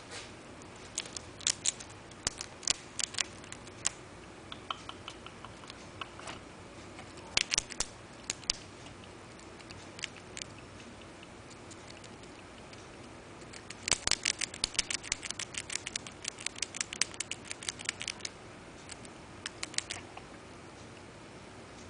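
Flying squirrel gnawing and crunching food held in its paws: bursts of sharp, rapid clicks, the longest a dense run of several seconds about two-thirds of the way through.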